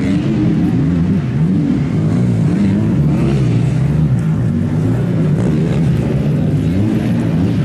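Several motocross bikes' engines revving up and easing off over and over as they race around a dirt track, their pitches rising and falling and overlapping.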